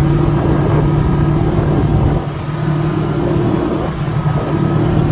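ATV engine running at a steady speed, with wind rumbling on the microphone. The engine eases off slightly about two seconds in.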